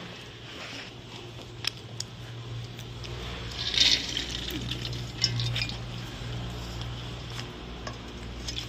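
Chickpeas poured off a steel plate, rattling into a metal pot in a short burst about four seconds in, among scattered clinks of the steel plate and pots knocking together.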